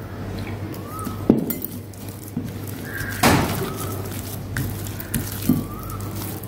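A hand mixing and squeezing a thick gram-flour batter with cashews in a glass bowl, with scattered knocks and clinks against the glass. The loudest knocks come about a second in and a little after three seconds in.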